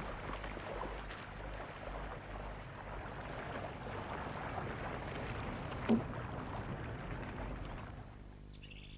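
Steady outdoor noise of wind and water on the estuary as a sailing yacht passes, with a brief louder sound about six seconds in. The noise drops away near the end, leaving a faint low hum.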